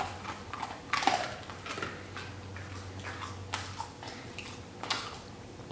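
A dog's soft mouth sounds: a few scattered wet clicks and smacks as it licks its lips, over a faint steady low hum.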